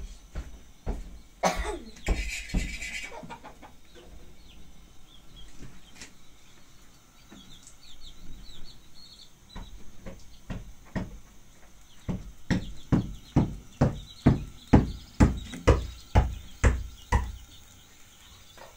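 Repeated knocks, scattered at first and then a steady run of about two a second in the last third, which is the loudest part. Faint bird chirps come in between, and there is a short rasping rustle about two seconds in.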